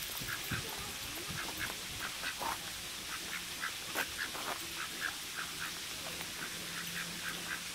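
Waterfowl giving a long series of short, soft calls, several a second, with one sharp click about four seconds in.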